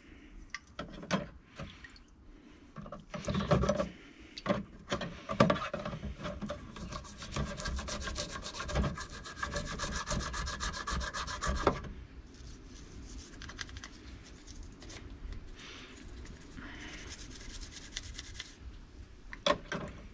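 A toothbrush scrubbing small, grimy Brembo brake caliper hardware wet with white spirit, in fast repeated rasping strokes. A few knocks come in the first few seconds; the scrubbing is loudest through the middle and turns softer about two-thirds through.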